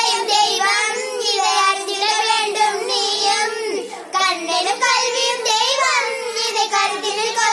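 Young girls singing a Tamil song together in one voice, a continuous melody with long held notes.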